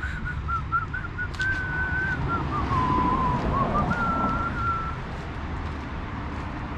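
A person whistling a short tune: a few quick notes, then longer held ones that dip lower and come back up, stopping about five seconds in. A steady low rumble runs underneath.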